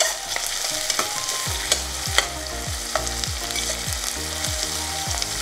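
Chopped onions and green chillies sizzling in hot oil in a pressure cooker, stirred with a metal spatula that scrapes and clicks against the pot.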